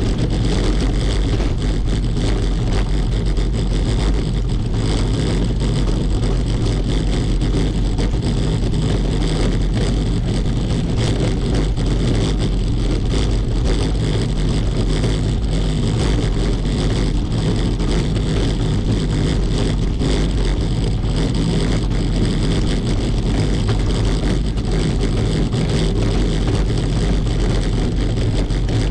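Bicycle rolling over cobblestones: a steady, loud rumble and rattle.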